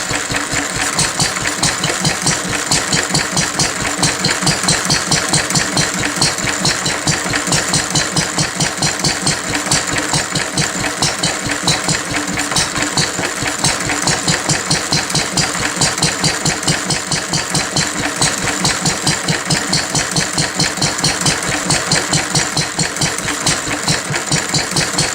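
1937 Lister D 2 hp single-cylinder stationary engine running steadily on its first run after a rebuild, with an even beat of about five firing pulses a second.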